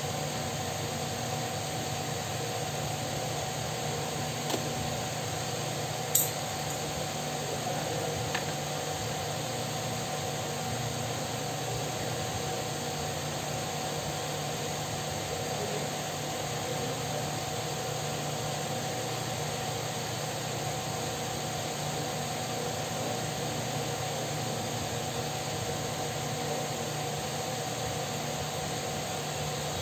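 Steady whirring hum of a running electric fan, with a few small clicks, the loudest about six seconds in.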